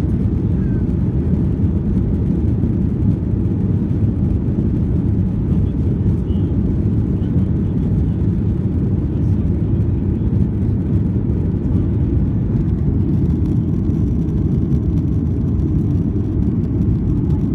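Airliner cabin noise in flight, as heard at a window seat: a steady, deep rumble of jet engines and rushing air.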